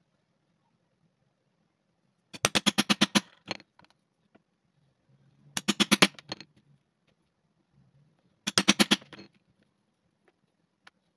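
Steel hammer striking a leather pricking iron (stitching chisel) to punch stitching holes through wallet leather on a poly board. There are three quick runs of sharp metal-on-metal blows, each lasting under a second.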